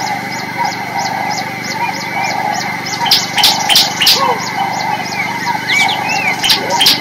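Birds calling: whistled notes that swoop up and down, a steady run of short high chips about three a second, and a few louder sharp chirps about three to four seconds in and again near the end.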